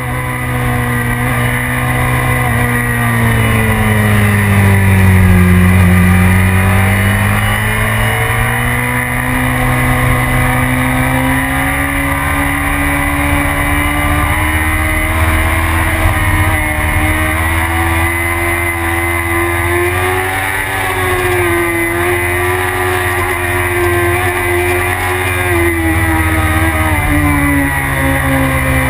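BMW sport bike's inline-four engine running hard on a track, heard from a camera mounted on the bike. Its pitch dips about five seconds in, climbs back, then holds fairly steady with small rises and falls through the corners.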